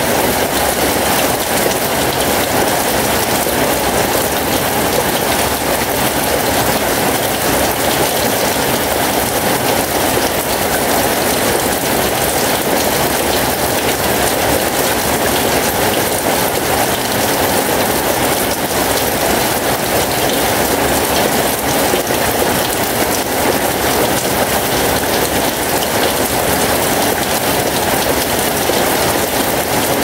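Steady heavy rain falling and splashing, with water streaming off a roof edge.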